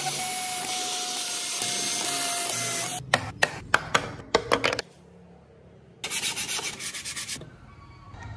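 Cordless drill running steadily into hardwood for about three seconds, with a constant whine. Then comes a series of sharp separate scraping strokes on wood, and after a short pause, a quick rhythmic run of rubbing strokes like hand sanding.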